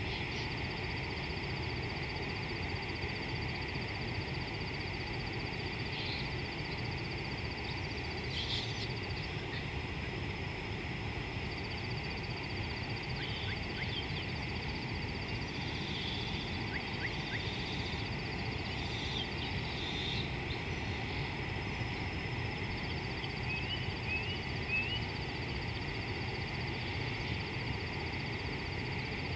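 Insects trilling steadily in a rapid high buzz, with a few short bird calls scattered through, over a low steady rumble.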